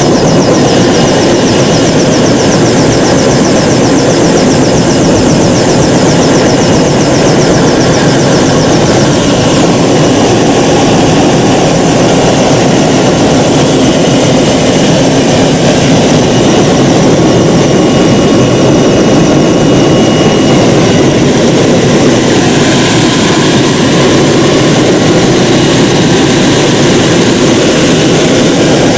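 Helicopter engine and rotor running loudly and steadily, heard from inside the cabin.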